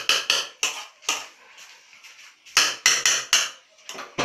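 Metal spoon clinking and scraping against the side of an enamelled pot while a salad is stirred: a quick run of clinks at the start, another about two and a half seconds in, and a few more near the end.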